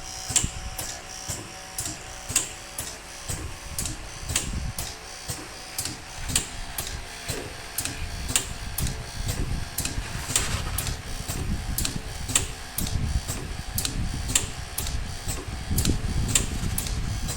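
Pneumatic connector socket strength testing machine running its automatic test cycle: its air cylinders and valves clicking about twice a second over a steady low mechanical hum.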